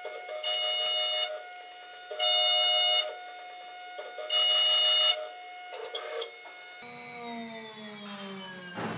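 The 2.2 kW high-speed spindle of a Stepmores SM-4040 CNC router, driving an end mill through hardened (about 55–60 HRC) tool steel, played back at three times speed. There are three loud, high-pitched ringing cutting passes of under a second each, with a quieter steady spindle whine between them. From about seven seconds in, a lower sound comes in whose pitch slowly falls.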